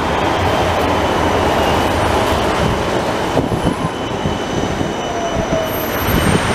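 Articulated tram passing close by, its wheels running along the rails with a faint high wheel squeal. Car tyres hiss on the wet road once it has gone, about four seconds in.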